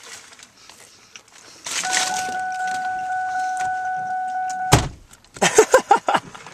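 Car power window motor running with a steady whine for about three seconds, then a sharp thud as the glass seats shut.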